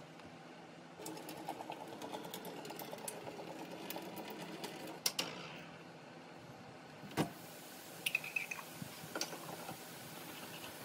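Bottles and a small stainless-steel cup handled over a steel kitchen sink: a few seconds of fast rattling, then several sharp clinks and knocks.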